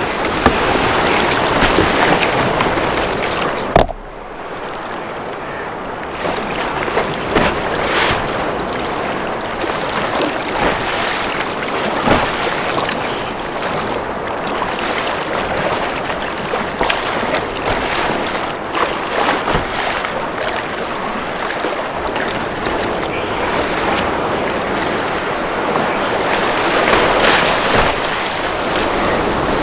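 Breaking surf and water splashing around a fishing kayak as it is paddled out through the waves, with scattered splashes from paddle strokes and waves hitting the hull.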